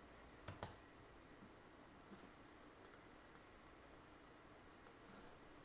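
A few faint, sharp clicks of a computer mouse, some in quick pairs, scattered over quiet room tone.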